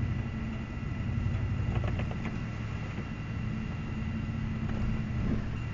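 Blizzard wind rushing and buffeting the microphone as a steady low rumble, with a faint steady hum underneath.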